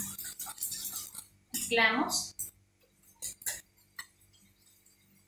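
Hand whisk beating a thin chocolate cake batter, its wires clicking and scraping against the bowl in quick strokes, then a few single strokes near the end.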